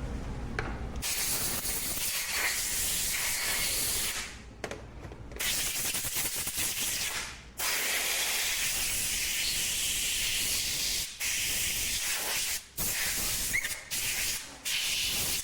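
Pressurised spray hissing into a push mower's carburetor in several long bursts with short breaks, cleaning out the bad fuel and clearing the jets.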